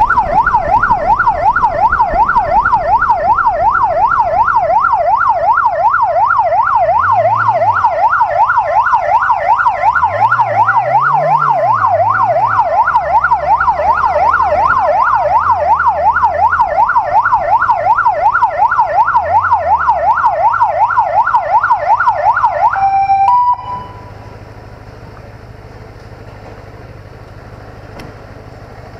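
Electronic siren on a police motorcycle sounding a fast yelp, about three sweeps a second, with the bike's inline-four engine rising and falling in pitch underneath. About 23 seconds in, the siren cuts off with a short beep, leaving the engine running quietly.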